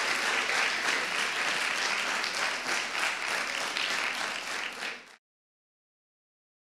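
Audience applauding after a live song, a dense steady clapping that fades out about five seconds in and then cuts to total silence.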